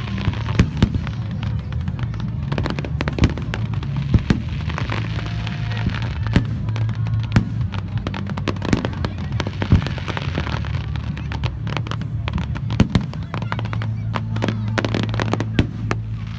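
Fireworks going off: an irregular string of sharp cracks and pops, often several a second, over a steady low hum.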